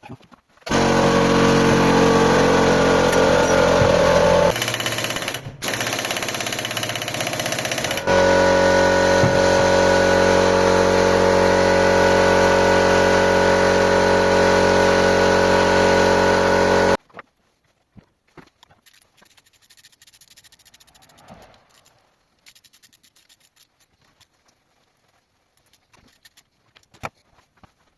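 A loud power tool runs steadily at one pitch for about sixteen seconds, easing off to a lower, thinner sound for a few seconds partway through, then stops suddenly. Faint handling knocks follow.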